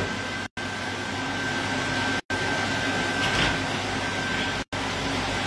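Steady whirring of a kitchen appliance running, with a thin, steady high whine over it. The sound cuts out completely three times, each time for a moment.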